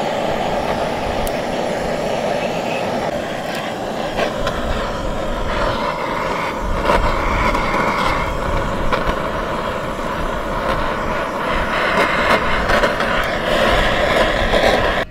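Handheld butane blowtorch burning with a steady, loud roar as its flame sears the skin of a goat leg, with scattered short clicks.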